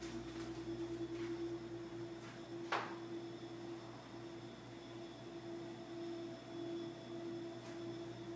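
A steady low electrical hum in a small room, with one sharp tap about three seconds in.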